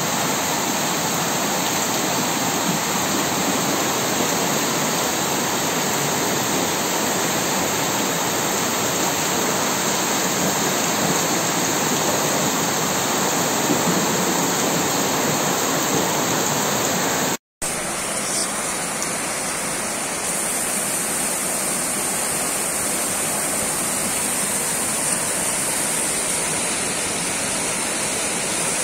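Loud, steady rush of heavy rain and fast floodwater pouring down a street. After a brief cut about two-thirds of the way in, the rush of a swollen river overflowing its banks.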